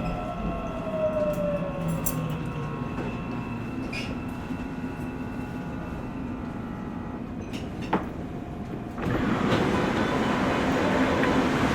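Inside a subway car as the train slows to a stop: its electric motor whine falls in pitch and then settles. A sharp click comes about 8 seconds in, and about a second later the sliding doors open and louder, noisier platform sound floods in.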